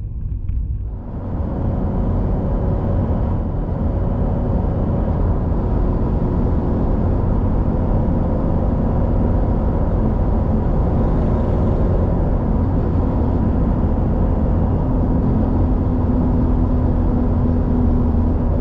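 Steady road rumble and tyre noise with engine hum inside a car cruising at highway speed, swelling about a second in and then holding level.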